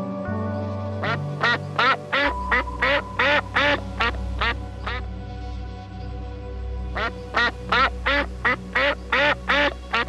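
Mallard ducks quacking in two rapid runs of short calls, about three a second, the first starting a second in and the second near the end, over background music with steady held low notes.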